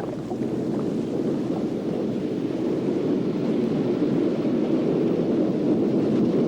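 Rough sea: heavy surf and wind making a steady, deep rushing noise with no let-up.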